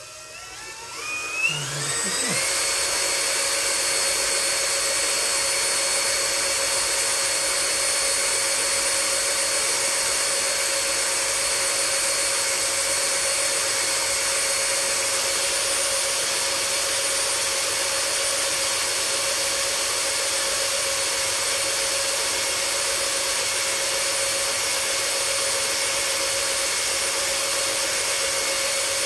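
Drill/driver started slowly, its motor whine rising in pitch over the first two seconds, then running at a steady speed as it drives a 3D-printed plastic yarn ball winder.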